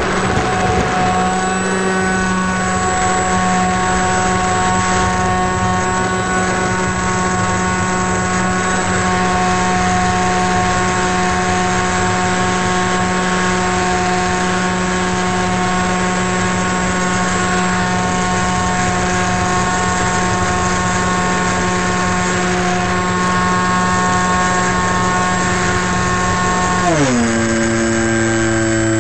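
Electric motor and propeller of a small FPV radio-controlled plane running steadily at high throttle, heard from the onboard camera over rushing air. Near the end the pitch drops as the throttle is pulled back.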